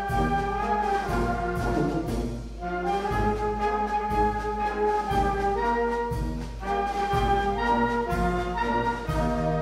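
Brass band playing: trumpets and trombones hold long notes and chords in phrases, with short breaks about two and a half and six and a half seconds in.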